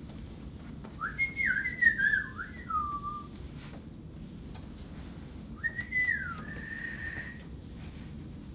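A person whistling in imitation of birdsong: a phrase of quick rising and falling whistled swoops about a second in, then a second phrase that slides down and settles on a held note.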